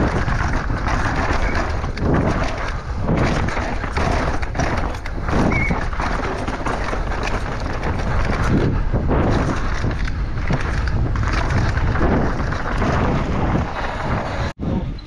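Downhill mountain bike ridden fast over rough ground: wind rushing over the microphone with irregular knocks and rattles from the bike. The sound cuts off abruptly near the end.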